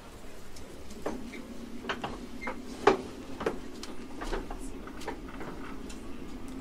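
Inside a JR East 719 series electric train: a steady low hum with scattered clicks and knocks, the loudest a sharp knock about three seconds in.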